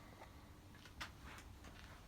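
Near silence: room tone with a few faint clicks, the sharpest about a second in.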